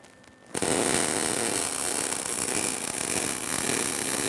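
Electric arc welding on steel: the arc strikes about half a second in and then crackles steadily as a short weld is run on a brace.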